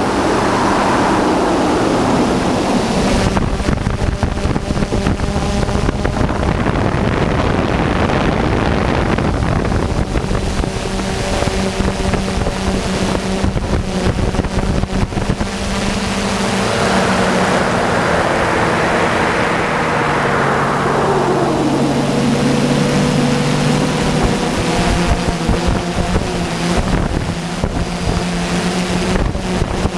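DJI F550 hexacopter's motors and propellers whining steadily, heard from a camera on the airframe with wind rushing over the microphone. About twenty seconds in, one of the motor tones glides down in pitch.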